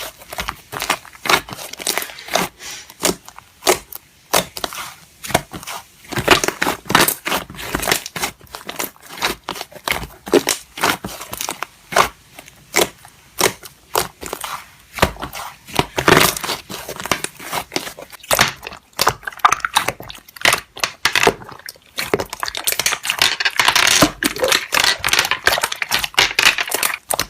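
Slime being squished and pressed, a rapid, irregular run of crackles, pops and crinkling that grows denser near the end.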